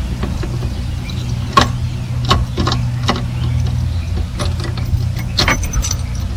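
Irregular clicks and knocks as a replacement ignition lock cylinder is pushed and worked into a Chrysler steering column, over a steady low hum.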